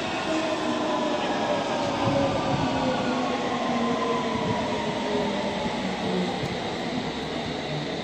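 London Underground S7 Stock train running, heard inside the carriage: a motor whine of several tones sliding slowly down in pitch over a steady rumble of wheels on track.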